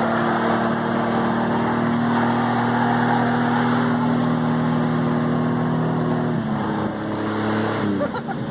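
Vehicle engine pulling at high, steady revs, with road noise under it. About six seconds in the revs drop as the throttle comes off, and they fall again near the end.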